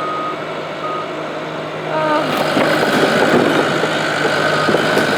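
Bulldozer's diesel engine running, growing louder about two seconds in as it works to pull on the chained shed.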